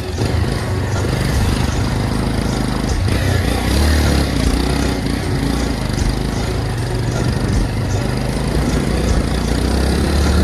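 Motorcycle engine running steadily while riding, with a dense rushing noise over it.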